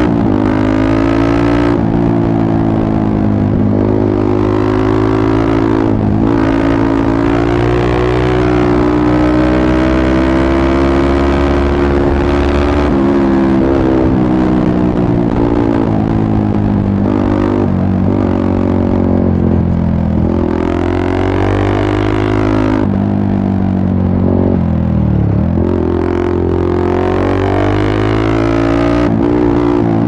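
Yamaha MT-15's 155 cc single-cylinder engine through an aftermarket Akrapovic exhaust, running hard under way, its pitch rising and falling with the throttle and a few short, sharp drops in pitch in the second half as the throttle is closed.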